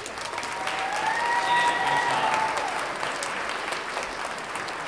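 Large audience applauding, the clapping swelling over the first two seconds and then easing slightly. One high held whoop from the crowd rises over the clapping about half a second in and lasts about two seconds.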